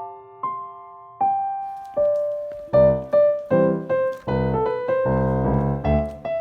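Background music: piano or electric-piano notes played one at a time, sparse at first, then joined by fuller bass notes about three seconds in.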